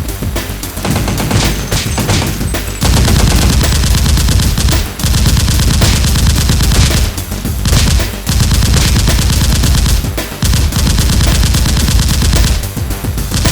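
Automatic gunfire sound effects in long rapid bursts over background music, the firing turning dense about three seconds in and pausing briefly a few times.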